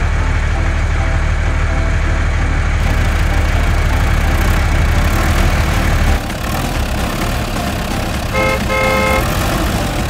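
Truck engine sound effect: a steady low engine rumble that changes abruptly about six seconds in, followed by two short horn toots near the end.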